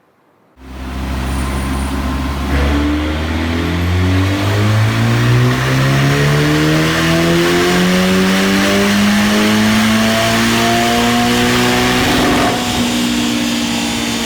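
Ferrari F154 twin-turbocharged V8 accelerating. It comes in about half a second in and its pitch climbs slowly and steadily for about ten seconds, then drops back a little near the end. The exhaust note is the subdued one that the reviewer blames on the turbochargers.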